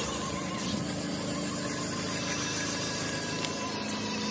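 Small DC motor driving a homemade toy truck, a steady whir with a constant high tone.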